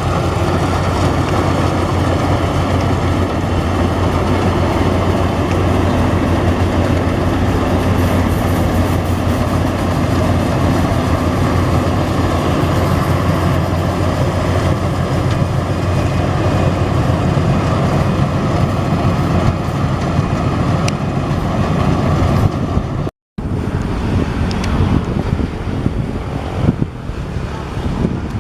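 Yanmar AW82V combine harvester's diesel engine running steadily with a constant low hum, cutting out for a split second about 23 seconds in.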